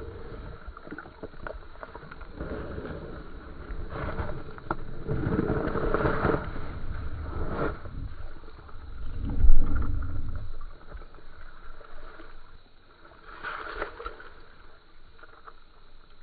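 Water sloshing and splashing in a hole in the ice as a large smallmouth bass is held in it and released. There are uneven low rumbles and a few knocks, the loudest bump about nine and a half seconds in, then it quietens for the last few seconds.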